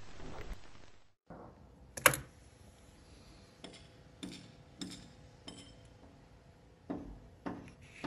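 Music fading out, then in near quiet a sharp click about two seconds in, followed by a run of soft knocks and taps, roughly one every half second to second.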